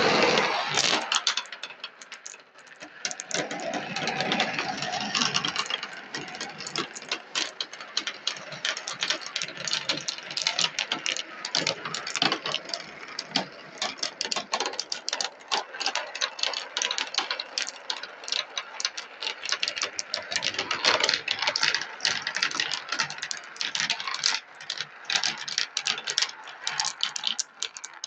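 A pack of 16 mm marbles rolling and clattering down a marble-run track: a dense, continuous stream of clicks and rattles that starts abruptly and is loudest at the start.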